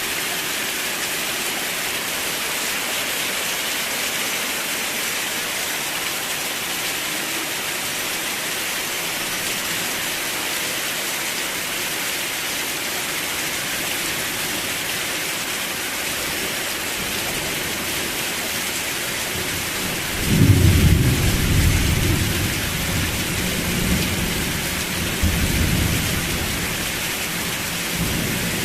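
Steady heavy rain falling, with a peal of thunder about two-thirds of the way in: a sudden low crack that rolls on for several seconds, swelling again before it dies away.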